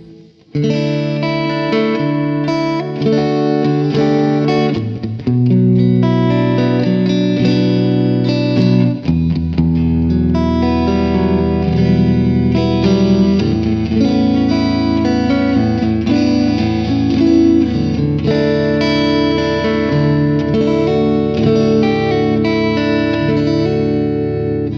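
Clean electric guitar, a G&L S-500 played through the Neural DSP Mesa Boogie Mark IIC+ amp plugin on its 'Glassy single coil' preset: chords and picked notes ringing over each other with long sustain. A deep low note comes in about nine seconds in and holds under the playing.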